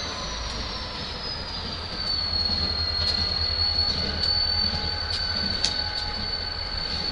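Freight train's diesel locomotives and cars rolling slowly past with a deep engine rumble, over a high, steady wheel squeal that slides down a little in pitch during the first two or three seconds and then holds. A few sharp clicks of wheels over rail joints come in the second half.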